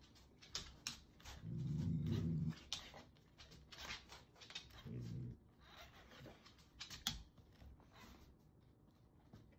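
A large dog growling low, once for about a second early on and again briefly in the middle, with scattered light clicks around it.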